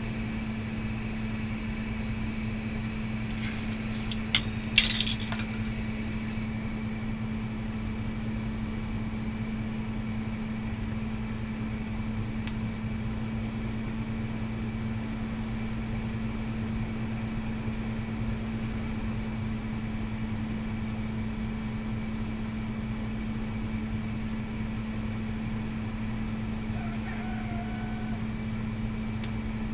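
Steady low hum and hiss of a lampworking torch setup burning throughout. Around four to five seconds in, a few sharp clinks of glass rods tapping together.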